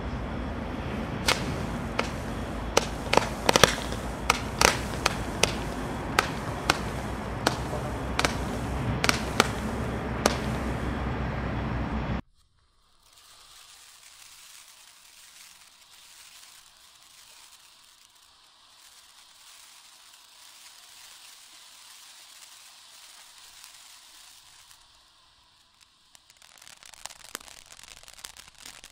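Ground firework fountains burning. For about twelve seconds a loud rushing spray is dotted with sharp cracks, then it cuts off suddenly. A much softer steady hiss of spraying gold sparks follows, with light crackling starting near the end.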